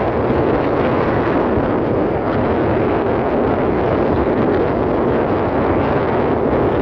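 Steady, loud rushing noise of wind buffeting the microphone while the camera moves along, with no breaks or distinct knocks.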